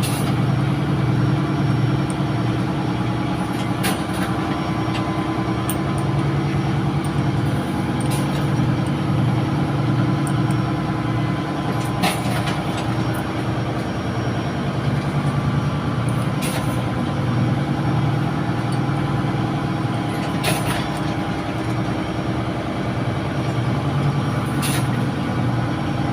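Steady drone of ship's engine-room machinery, with running diesel engines holding a constant low hum. Short clicks come through about every four seconds.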